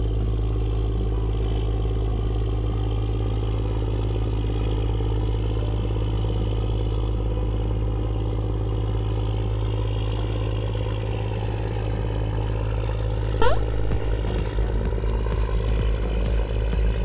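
Steady, even drone of a running engine. About thirteen seconds in, a short whistle rises sharply in pitch, and a few sharp clicks follow.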